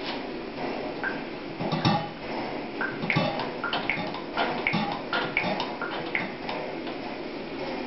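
Homemade petrol stove with a Russian Shmel-2 burner being lit: a steady hiss with irregular pops and crackles, a few every second, as the flame catches.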